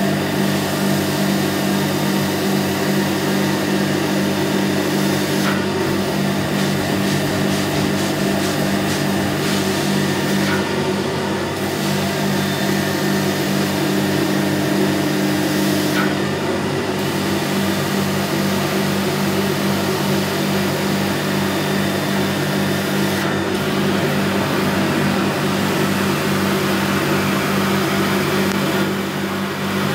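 Carpet extraction machine's vacuum motor running steadily, with a rushing suction hiss as the wand's floor tool is drawn across a rug; the hiss dips briefly a few times.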